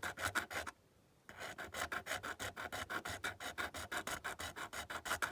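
Small hand file rasping in quick back-and-forth strokes, about six a second, on a die-cast metal toy car body, filing away a casting line. The strokes stop for about half a second about a second in, then resume.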